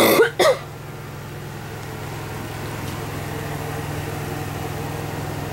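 A steady low mechanical hum, with two brief loud bumps right at the start.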